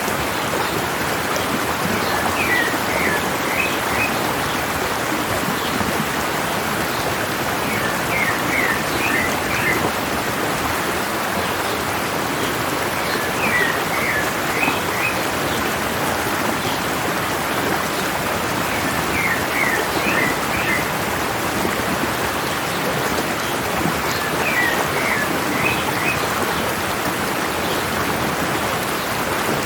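A mountain stream rushing steadily, with a bird singing a short phrase of quick high chirps about every five to six seconds.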